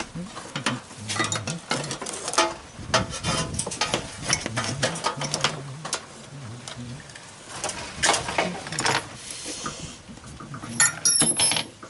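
Small metal clinks and rattles as drill bits are handled and fitted into a bench drill press chuck, with a brief high squeak near the end.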